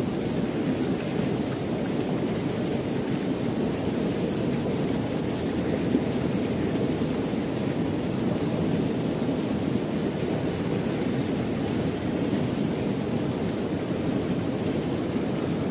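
Swift river current rushing steadily past the bank, a constant noise with no breaks.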